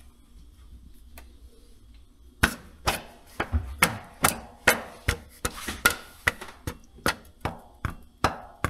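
Piston being tapped down into a cylinder bore of a Case IH Magnum 7250's Cummins engine during assembly: a run of sharp knocks, about two or three a second, starting about two and a half seconds in.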